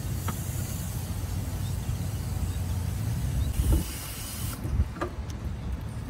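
Hose-fed coil-cleaner spray gun hissing as it soaps up a dirty condenser coil, then cutting off about four and a half seconds in. Underneath there is a steady low rumble and a couple of light knocks.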